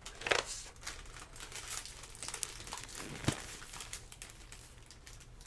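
Crinkly trading-card packaging crackling and rustling as it is handled, with two sharper crackles, one just after the start and one just past three seconds in.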